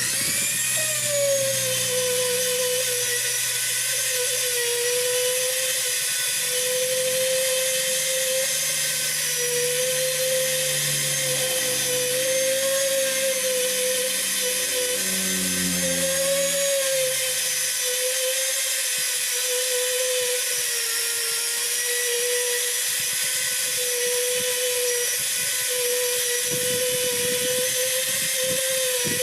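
Rotary power tool running with a steady high whine while the puncture in a tubeless tyre is worked for a mushroom-plug repair, as in reaming the hole or buffing the inner liner. A lower, wavering hum underneath fades out a bit over halfway through.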